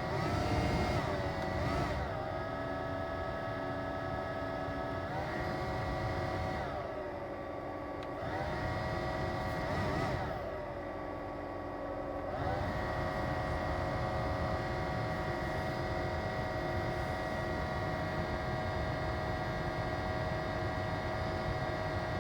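Daihatsu Move's air-conditioning blower fan running with a loud, abnormal whine over a low rumble. Its pitch shifts up and down several times in the first half as the fan speed changes, then holds steady.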